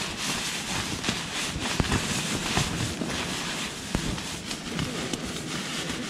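Nylon shell of a puffy sleeping bag rustling and crinkling as it is handled and crammed into its stuff sack, with irregular crackles and a few soft thumps.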